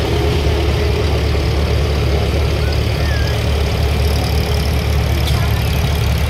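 John Deere 4020 tractor's six-cylinder engine running at a low, steady speed as it drives slowly past close by.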